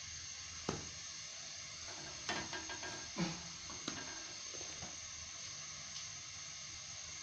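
Pita bread being flipped and handled on a flat griddle (tawa): a few light knocks and taps, one about a second in and a cluster between two and four seconds in, over a steady soft hiss.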